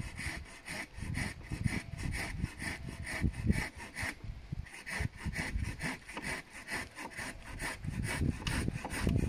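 Folding pruning saw cutting through a hazel pole by hand, in quick, even back-and-forth strokes, about three a second.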